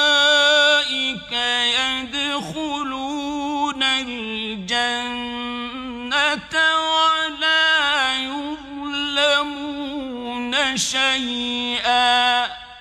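A male voice reciting the Quran in the melodic mujawwad (tajweed) style: long, held, ornamented notes that waver and turn in pitch, in several phrases with short breaths between them. The last phrase ends near the end and dies away.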